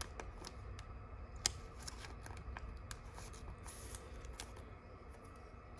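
Trading cards being handled and flipped through: faint, light clicks and slides of card stock, with a sharper tick about a second and a half in and a brief rub a little before four seconds.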